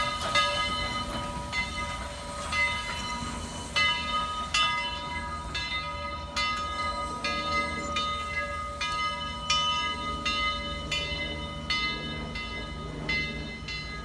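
Locomotive bell ringing steadily, about one strike a second, each strike ringing on, over the low rumble of the train.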